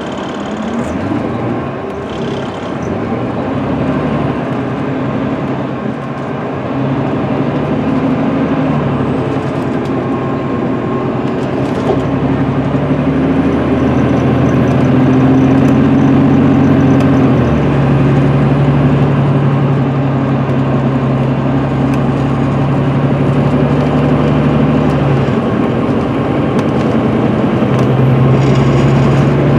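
The Cummins ISM inline-six diesel of an MCI D4500CL coach, heard from inside, pulling away and accelerating. Its note climbs and grows louder, then drops in steps a couple of times and climbs again, as the Allison automatic shifts up.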